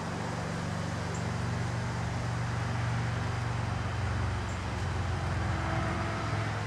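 Steady low engine hum, a motor vehicle running close by, growing a little louder and shifting in pitch about five seconds in.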